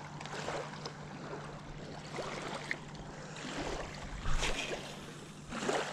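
Small waves lapping against a rocky lakeshore, with a steady low hum under it and a couple of brief handling bumps near the end.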